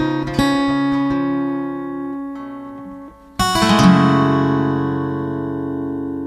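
Background music on strummed acoustic guitar: chords ring and fade, a short lull comes about three seconds in, then a final chord is strummed and left to ring out, slowly dying away.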